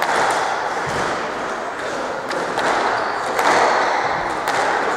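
Squash rally: the ball cracks and thuds off rackets and the court walls in a series of sharp, irregularly spaced hits, over a steady background din in the hall.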